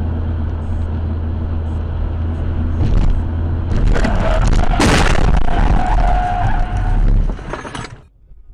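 Car interior road and engine noise, then tyres skidding under hard braking as a car cuts across the path, with a loud bang about five seconds in and a squeal after it. The sound cuts off abruptly near the end.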